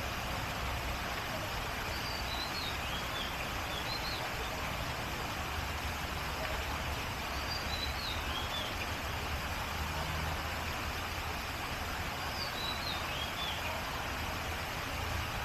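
Steady outdoor ambience, an even rush with a low hum under it, while a bird calls in short chirping phrases three times, a few seconds apart.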